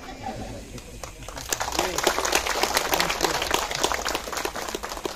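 A crowd clapping hands in applause, starting about a second and a half in and easing off near the end, with a few voices talking before it.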